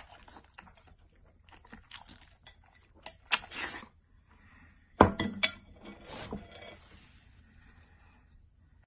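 Close-up eating sounds: chopsticks clicking against a bowl, with chewing and slurping, and a sharp knock about five seconds in.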